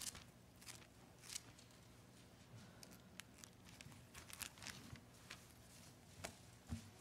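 Faint rustling and soft ticks of thin Bible pages being leafed through at a pulpit, with a soft knock near the end.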